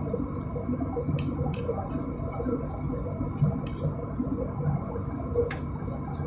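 Airliner cabin noise in cruise: the steady low rumble of the jet engines and airflow past the fuselage, with a few faint ticks.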